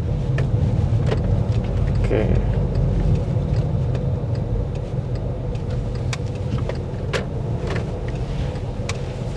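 VW Touran with the 1.4 TSI twincharger engine driving, heard from inside the cabin as a steady low rumble of engine and road noise, with a few light clicks.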